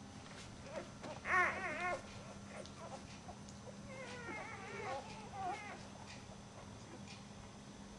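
Nursing Labrador puppies whimpering and squeaking in short wavering cries, the loudest a little over a second in and another run of them about four to six seconds in.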